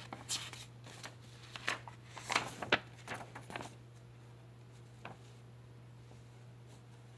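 Packaging and product being handled during an unboxing: a flurry of rustles and small clicks for the first few seconds, then a single click about five seconds in, over a steady low hum.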